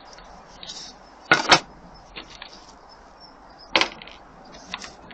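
An AP900 air gun firing two pellet shots about two and a half seconds apart. The first is a sharp double crack and the second a single crack, with a few faint clicks between them.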